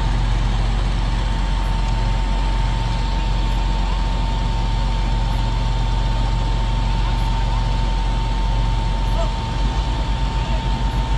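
Large John Deere tractor diesel engines running steadily, with a steady high whine over the engine sound. About nine seconds in, a low rhythmic throb of about three pulses a second sets in.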